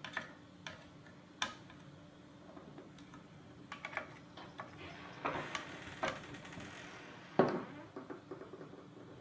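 Small screwdriver turning and clicking on the bolts as they are tightened, in scattered light clicks. A louder knock about seven seconds in as the screwdriver is set down on the table.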